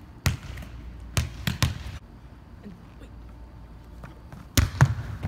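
A volleyball being struck and bouncing on a hardwood gym floor: a scatter of sharp slaps and thuds with a short echo. There is one near the start, three in quick succession about a second in, and two or three more near the end.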